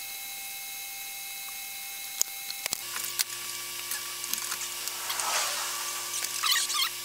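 Sharp clicks and knocks from the wooden chicken-coop pop door being handled, then a run of high, scattered squeaks near the end.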